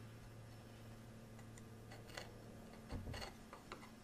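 Faint scraping and small clicks of a hand-pushed chisel paring wood in the corners at the base of dovetail tails, a few light strokes around the middle and near the end.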